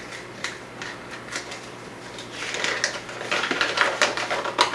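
Paper crinkling and rustling as it is unwrapped and unfolded by hand: a few short crackles, then denser rustling from a little past halfway.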